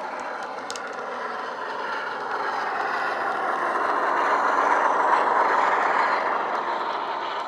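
Sound-fitted OO gauge Heljan Class 45 model diesel locomotive running past, its SWD sound decoder playing Class 45 diesel engine sound through an EM1 speaker, with the noise of its wheels on the track. It grows louder as it approaches, is loudest about five seconds in, then fades.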